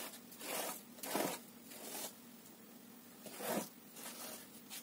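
Risen yeast dough being pulled and torn by hand: a handful of short, soft rasping tears, the clearest about half a second, a second and a quarter, and three and a half seconds in.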